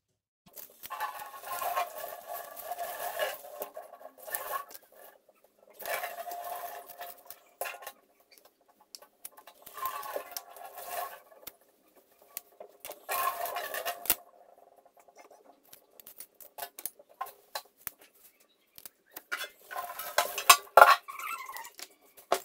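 Kitchen knife scraping under chocolate-coated balls to free them from parchment paper, in about six separate strokes a second or two long, scratchy with a slightly squeaky edge, with small clicks between them.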